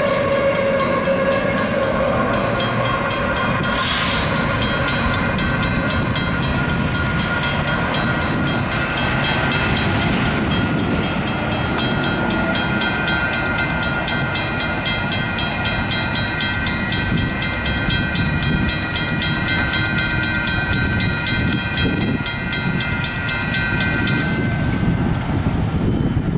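Grade-crossing warning bells ringing in fast, even strikes over the rumble of a train moving away. The bells stop near the end as the crossing clears and the gates begin to rise.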